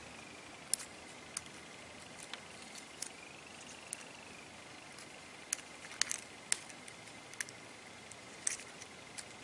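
Faint, irregular small clicks and ticks of the iPhone 6 front camera and earpiece flex cable being worked loose from the display frame by hand, about a dozen in all.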